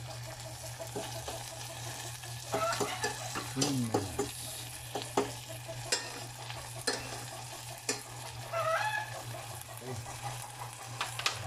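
A fork stirring corned beef and onions in a stainless steel saucepan, sizzling over the heat, with repeated sharp clicks of the fork against the pan. A few short pitched calls sound in the background, around three to four seconds in and again near nine seconds.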